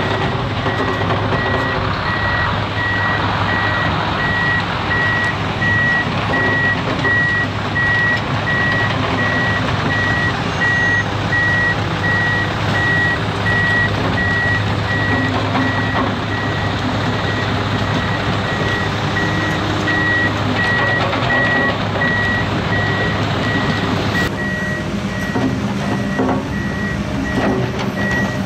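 Heavy machine's reversing alarm beeping at one high pitch in a steady, regular rhythm over the continuous running engines of earthmoving machinery.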